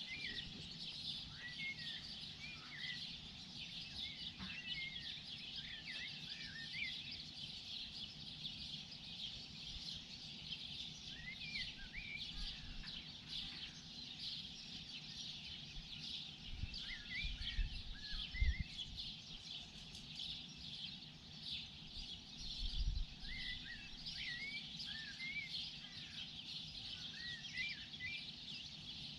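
Morning bird chorus: many small birds chirping steadily, with a louder bird whistling short rising-and-falling phrases every few seconds. Low rumbles come twice in the middle.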